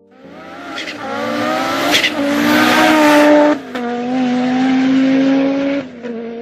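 A car engine revving at speed over a hiss of tyre and road noise, breaking off briefly three times and fading out near the end.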